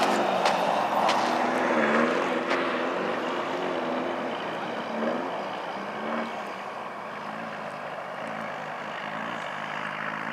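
Off-road race car engine revving up and down, its pitch rising and falling, loudest at first and fading steadily. A few sharp clicks come early on.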